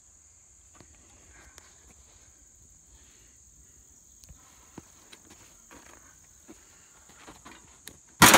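Faint steady high chirring of insects with scattered small ticks and scuffs, then near the end a single loud sledgehammer blow on the old steel grill, which rings briefly.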